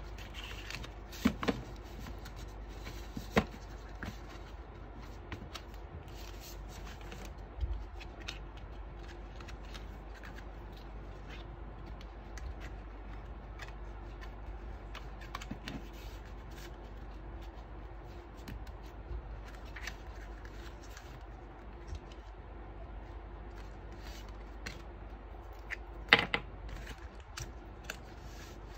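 Hands handling and folding stiff black cardstock scrapbook pages on a tabletop: paper rustling and sliding, with a few sharp taps and clicks, the loudest a short cluster near the end, over a low steady hum.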